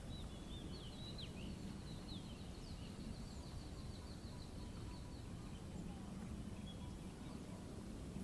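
Faint nature ambience: small birds calling, with a rapid trill of short high notes about a second in that runs for around two and a half seconds, over a steady low background rumble.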